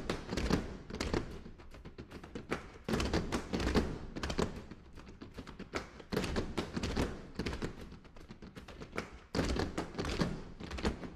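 Broom percussion: a group of performers striking and scraping brooms on a wooden stage floor in an interlocking rhythm, a dense run of knocks and swishes.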